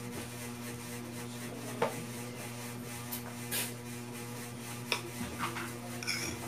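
Metal fork clinking and scraping on a plate of noodles, with chewing sounds, in a few sharp clicks over a steady low hum.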